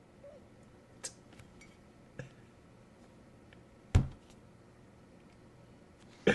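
Handling noise from a mug and its packaging: a few light clicks, then a single louder knock about four seconds in.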